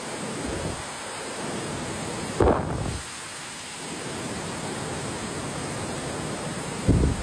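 Steady rushing water of a waterfall, an even hiss across all pitches. Two brief low bumps, about two and a half seconds in and near the end, like wind buffeting the microphone.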